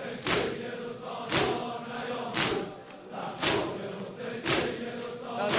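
A crowd of mourners chanting a noha in unison while striking their chests in time (sineh-zani): a sharp slap about once a second, with softer slaps between.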